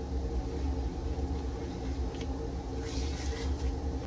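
Kitchen range hood vent fan running with a steady low hum, with a few faint brief noises from the pot of jelly being stirred as it comes to a full rolling boil.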